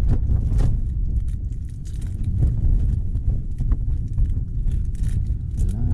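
Strong wind buffeting a tent: a steady low rumble with irregular flaps and knocks throughout.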